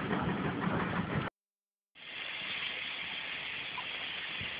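A train's heavy rumble, fading as it draws away, cuts off abruptly about a second in. After a short silent gap, a steady hiss of steam comes from GWR 2800-class 2-8-0 no. 2857, standing in steam.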